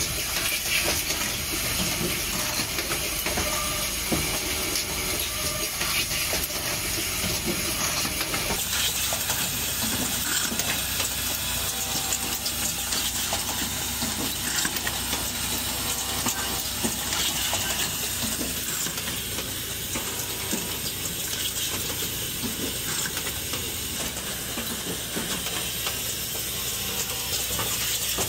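Automated motor magnet-assembly machinery running: a steady hiss with many small clicks and clacks as pneumatic cylinders and grippers move the parts. The sound changes abruptly about eight and a half seconds in.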